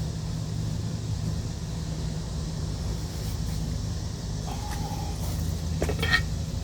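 An engine running steadily with a low hum. A brief higher tone comes about four and a half seconds in, and a few clicks near the end.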